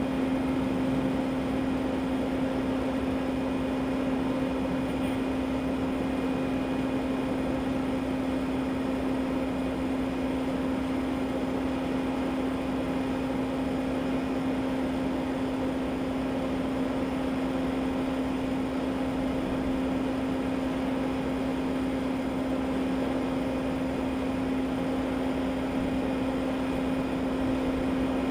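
A steady machine drone: one constant hum with a fainter overtone, over an even rushing hiss, unchanging in level.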